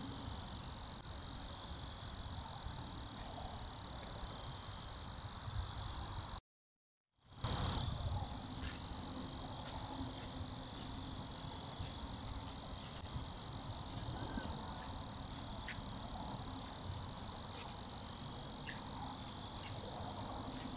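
Steady high-pitched night chorus of crickets or katydids over a background hiss. It cuts out completely for under a second about six seconds in; after that, sharp high ticks repeat every half second or so.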